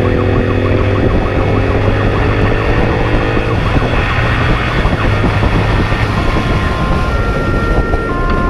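Police motorcycle at speed, its engine climbing in pitch as it accelerates for the first few seconds, with wind rushing past. Its siren sounds over it, a fast yelp at first, then steady tones switching between pitches in the second half.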